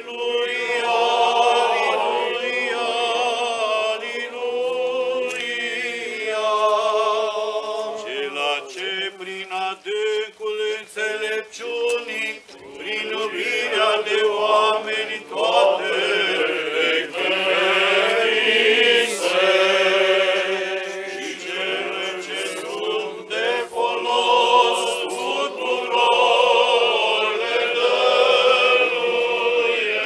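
Eastern Orthodox funeral chant sung by a choir, slow melodic lines with long held notes.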